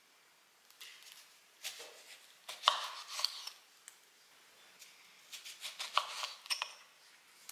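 Small kitchen knife slicing a lemon into rounds on a wooden cutting board, with sharp cuts and knocks of the blade on the board. The cuts come in two clusters, about two and a half seconds in and again around six seconds, with a few lighter cuts about a second in.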